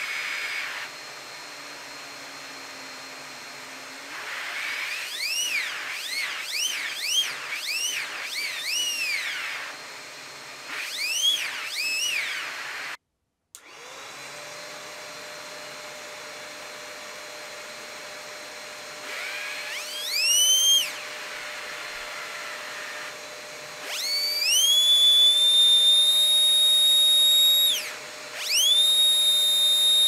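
Vacuum-cleaner-powered twin air turbine rotary tool spinning up and down: its high whine rises and falls in several quick surges over the steady drone of the vacuum cleaner. Later it spins up and holds a high, steady whine for a few seconds, twice.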